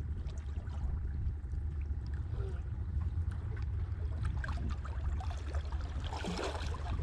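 Water sloshing and lapping over a steady low rumble, with scattered small clicks and a brief splash about six seconds in.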